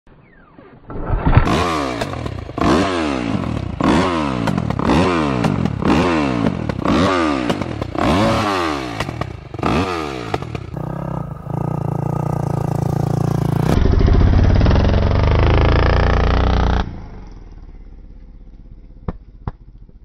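KTM 250 SX-F's four-stroke single-cylinder engine through an Akrapovič exhaust, blipped about once a second, each rev rising and falling. It then runs steadily for several seconds, louder toward the end, before cutting off abruptly.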